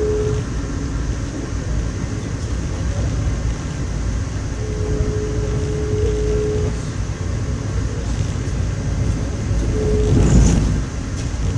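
A Via Rail passenger train heard from inside the coach while it travels at speed: a steady low rumble of the wheels and carriage. A steady whining tone comes and goes, just at the start, from about five to seven seconds in, and briefly near ten seconds. A louder rush comes near the end.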